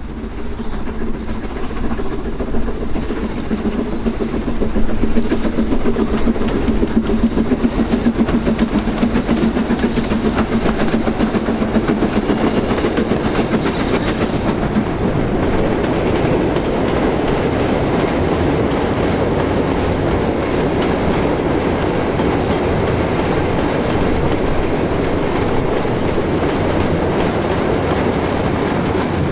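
A train running past close by, its wheels clattering steadily over the rail joints for the whole stretch, with a brief higher hiss about halfway through.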